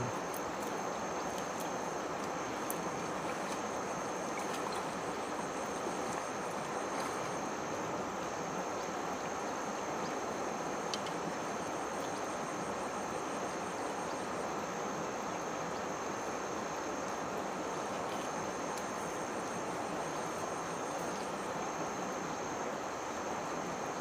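Steady rush of a shallow river running over rocks, with a constant high-pitched insect drone over it.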